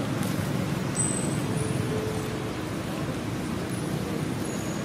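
Steady low outdoor background rumble with no clear events. A few faint, short high-pitched tones sound over it.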